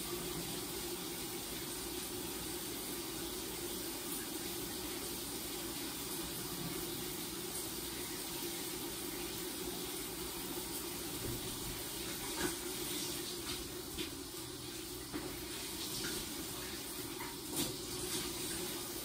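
Shower running steadily behind a glass door, a constant rush of water spray, with a few short knocks or splashes in the second half.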